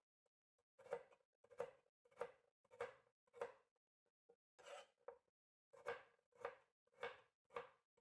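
Carrots being sliced on a hand vegetable slicer: a faint, regular run of short slicing strokes, a little under two a second, with a brief pause about halfway through.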